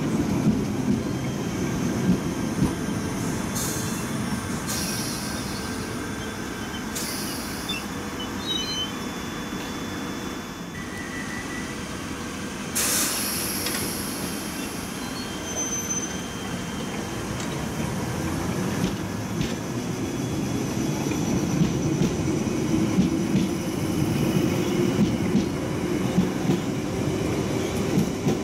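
London Underground Piccadilly line tube trains running on the track, a steady low rumble of wheels on rail that grows louder in the second half. A few short, high-pitched wheel squeals come through, the strongest about 13 seconds in.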